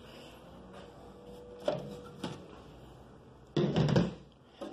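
Sheet-metal side panel of a desktop computer case being taken off and set down on a table: a couple of light clicks, then a louder bump and rattle about three and a half seconds in.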